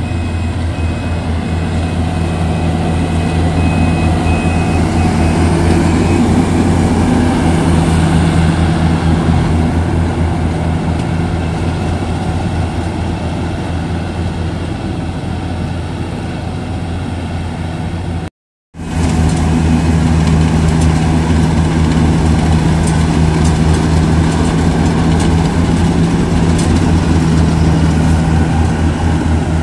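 Yanmar AW70V combine harvester's diesel engine running steadily under load while harvesting rice. The sound drops out completely for a split second about two-thirds of the way through.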